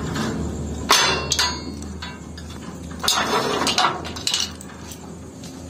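Metal barred gate clanking and rattling as it is pushed shut and its latch worked, with several sharp metallic knocks and a ringing after them, the loudest about a second in.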